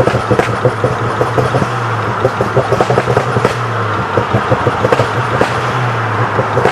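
Ford Focus ST with a Scorpion de-cat exhaust, engine running at a steady speed with a constant low drone and many small, irregular crackles.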